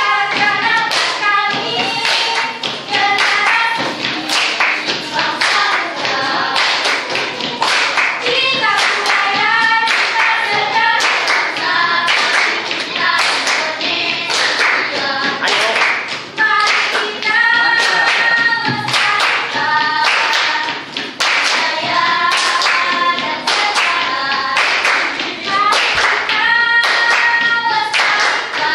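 A small group of children singing a chant together, clapping their hands in a steady rhythm.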